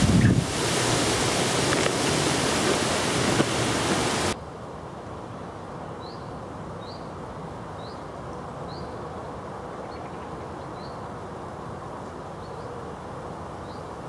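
Wind buffeting the microphone, a loud steady rush with a low gust at the start, that cuts off abruptly about four seconds in. A much quieter steady outdoor hiss follows, with faint short high chirps repeating about once a second.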